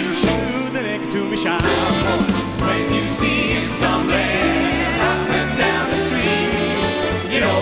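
Male a cappella group singing a wordless vocal break in close harmony, with a pulsing bass voice carrying the rhythm underneath.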